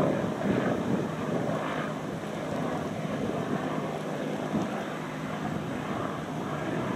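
Bell UH-1-type helicopter flying past at a distance, a steady rotor and engine sound, with some wind on the microphone.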